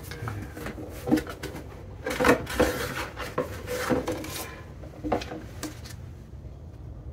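Paper leaflets and a cardboard box being handled: rustling and rubbing with a few sharp knocks, busiest from about two to four and a half seconds in and again around five seconds in.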